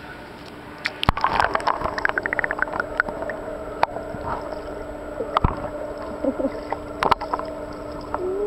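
Heard underwater in a swimming pool: bubbling and gurgling with sharp clicks over a steady low hum, busier from about a second in.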